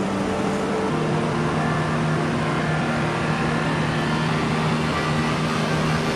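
River rapids rushing steadily, a constant roar of whitewater heard from a kayak on the water.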